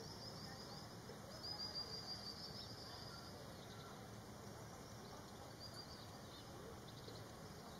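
Bird calling: rapid runs of short, high-pitched notes, loudest a second and a half to two and a half seconds in, with weaker notes later, over a faint low background rumble.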